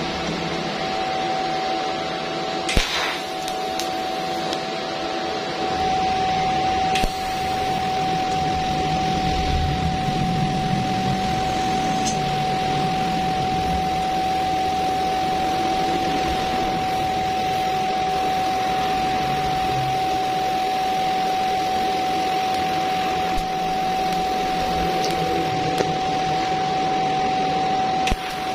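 TIG welding arc from a Stahlwerk InMIG-6LV multi-process welder, burning steadily as filler rod is fed into a steel joint: a continuous hiss with a steady tone through it. A sharp crack comes about three seconds in, and the arc breaks off briefly near the end.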